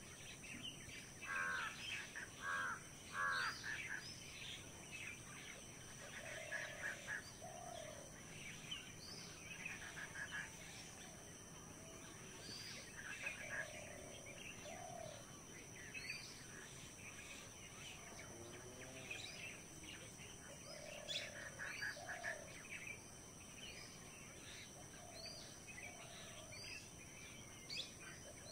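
Several birds calling and chirping in mixed birdsong, with a lower call of two or three short notes repeating every few seconds. A steady thin high-pitched hum runs underneath.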